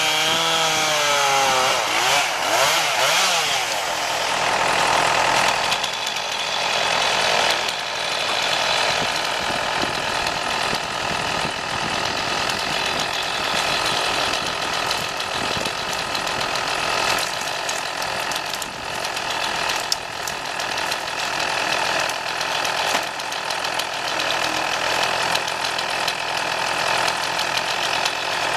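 Chainsaw engine revving up and down for the first second or two, then running steadily under load as it cuts through wood.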